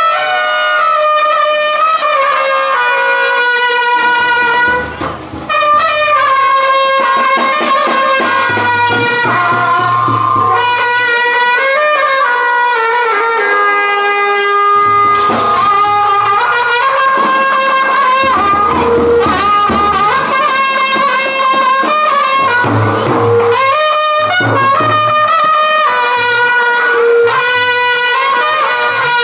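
Brass band playing: trumpets carry a continuous melody of held notes, with big bass drums beating in stretches underneath.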